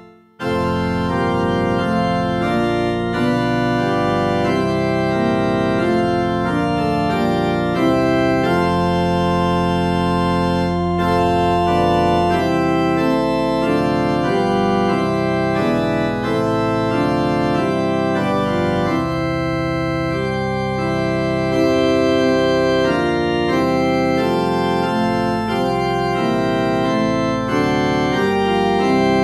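Background organ music: held chords with a moving melody line over them, starting again after a brief drop right at the beginning.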